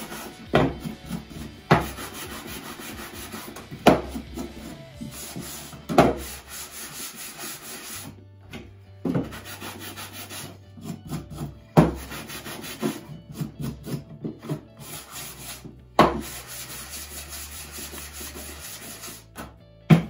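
Handheld sanding block rubbing along the edges of wooden boards in quick back-and-forth strokes, a steady scratchy sound, with a few sharp knocks in between.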